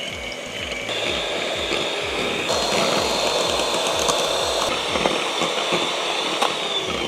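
Electric hand mixer running, its beaters whipping heavy cream and sugar into stiff whipped cream in a glass bowl. The motor gives a steady high whine that steps up in pitch about a second in and falls away near the end as the mixer slows.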